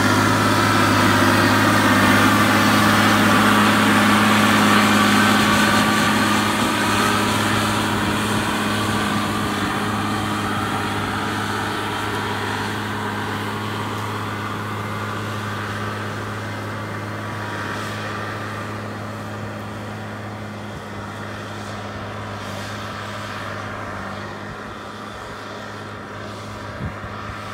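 New Holland T8.410 tractor's six-cylinder diesel engine running steadily under load, pulling an eight-body Lemken Eurodiamant reversible plough. It is loudest in the first few seconds as the tractor passes, then fades steadily as it pulls away, with a small knock near the end.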